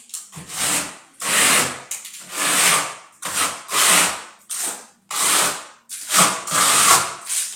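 Steel trowel spreading textured stone-chip ("kamushkovaya") decorative plaster, about ten scraping strokes in a row, each under a second, with short pauses between.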